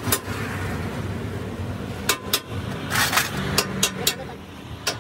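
Sharp metal clinks and knocks from work on a heavy truck's front axle steering knuckle, about eight in all, one at the start and the rest bunched in the second half, over a steady low hum.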